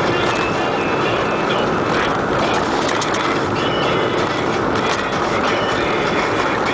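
Car driving at low speed, heard from inside the cabin: a steady rush of engine and tyre noise, with a few light clicks or rattles.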